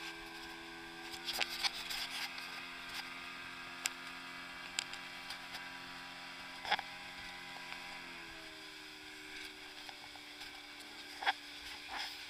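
Motorboat engine running under way while towing, a steady droning note that shifts in pitch about eight seconds in, with occasional sharp knocks.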